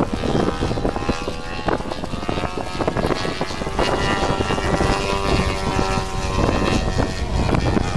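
Engine and propeller of a radio-controlled scale Christen Eagle model biplane running steadily in flight, heard under heavy wind buffeting on the microphone.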